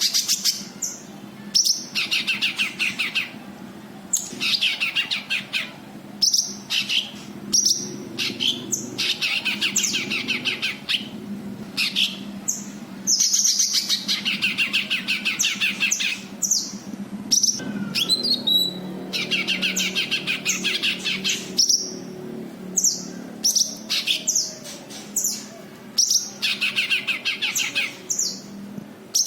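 Cucak kinoi singing: bursts of fast chattering trills a second or two long, alternating with short sharp high notes, repeated throughout, over a faint steady low hum.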